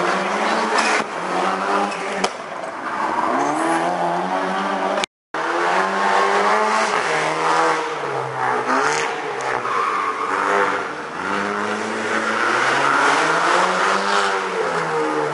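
Rally car engines revving hard, the pitch climbing and dropping again and again through gear changes. The sound breaks off for a moment about five seconds in.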